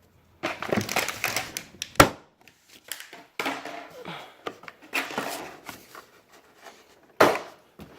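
Craftsman mechanics tool set's plastic carrying case being closed and handled: bouts of rattling and clattering, with a sharp snap about two seconds in and another near the end, like its latches clicking shut.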